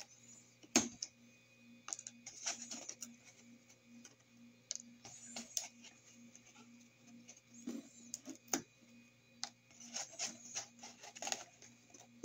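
Small irregular clicks, crackles and rustles of a machine-cut stencil sheet as the cut-out letter pieces are picked and peeled out by hand, over a faint steady hum.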